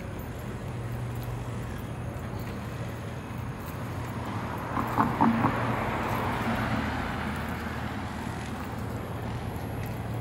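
A car passing on the road alongside, its tyre and engine noise swelling and fading over a few seconds over a steady low hum of traffic. A few short high-pitched chirps sound about halfway through.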